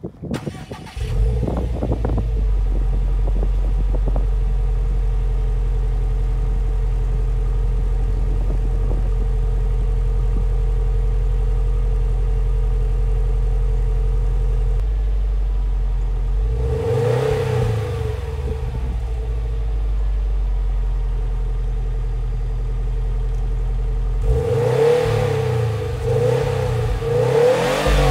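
Subaru WRX STI Type RA's turbocharged 2.5-litre boxer four on its factory exhaust, heard from behind. It starts up about a second in and settles into a steady fast idle. It is revved once around the middle and given several quick blips of the throttle near the end.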